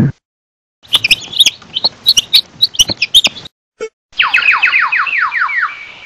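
Domestic chickens calling: a quick, jumbled run of high chirps and squawks, then after a short pause a rapid series of about a dozen falling peeps, roughly six a second.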